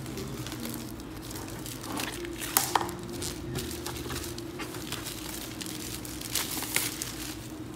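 Clear plastic shrink-wrap being pulled and peeled off a cardboard laptop box, crinkling in bursts, with sharp crackles about two and a half seconds in and again around six and a half seconds.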